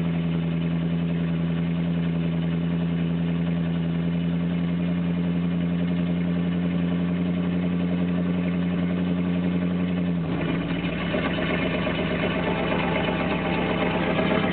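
1983 Chevy Silverado pickup's engine idling steadily on a cold start, heard from inside the cab. About ten seconds in the even note breaks up into a rougher, noisier sound.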